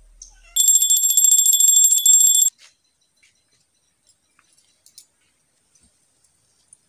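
A bell ringing rapidly and continuously for about two seconds, bright and high-pitched, starting and stopping abruptly. A few faint ticks and rustles follow.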